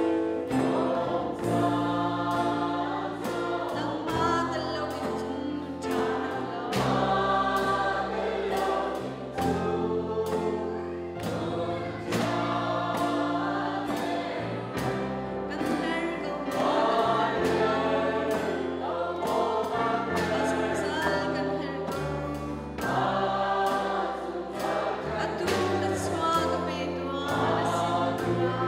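A worship song sung by many voices together, accompanied by a drum kit, electric guitar and a steady bass line.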